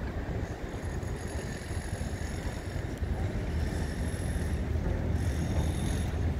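Steady low outdoor rumble, with faint high-pitched tones coming and going.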